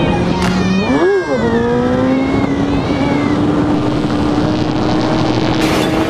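Kawasaki sportbike engine revving. It blips up and back down about a second in, then its pitch climbs steadily as the bike accelerates on a wheelie.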